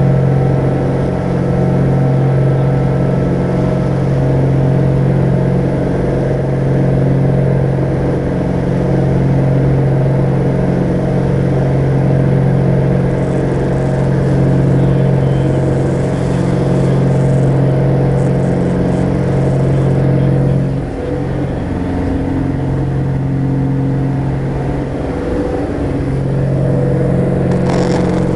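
Diamond DA42 Twin Star's two engines and propellers droning steadily, heard inside the cabin during the climb after takeoff. The level and pitch of the drone shift slightly about two-thirds of the way through.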